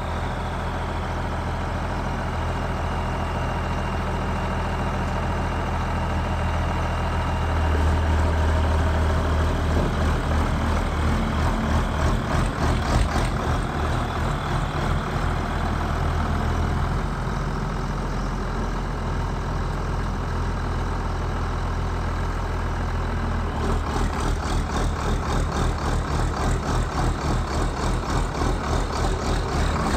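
Allis-Chalmers 7040 tractor's turbocharged six-cylinder diesel engine running steadily. It gets louder about eight seconds in, and near the end it takes on a rhythmic pulsing.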